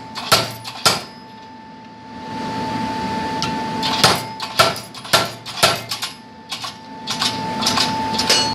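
Home-made spring-return treadle hammer with a 14-pound head striking steel: two heavy blows near the start, then a quick irregular run of about eight blows from about four seconds in, over a faint steady tone.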